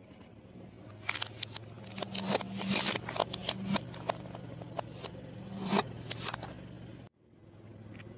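Plastic toy remote controls being crushed under a slowly rolling car tyre, the plastic cracking and snapping in a quick run of sharp cracks, over the steady low hum of the car's engine. The sound cuts off abruptly near the end.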